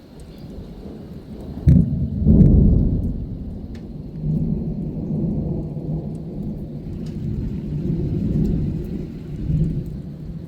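Thunder: a sudden crack about two seconds in, followed by a long low rolling rumble that swells again near the end.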